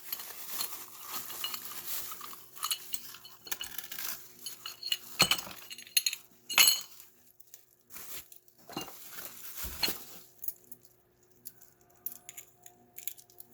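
Small metal parts of a deadbolt lock set and its keys clinking and clattering as they are unpacked and handled, with scattered sharp knocks. The knocks are loudest about six and a half seconds in and thin out to occasional faint clicks near the end.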